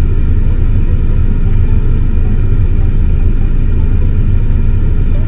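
Car idling, heard inside the cabin as a steady low rumble.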